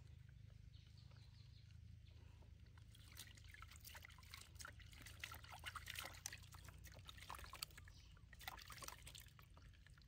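Faint splashing, trickling and dripping of water as a hand scoops and pours bath water in a plastic basin, starting about three seconds in, over a low steady background hum.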